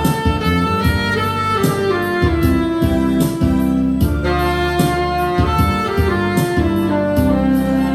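Saxophone playing a sustained, slow melody over a backing track with a steady drum beat and bass line.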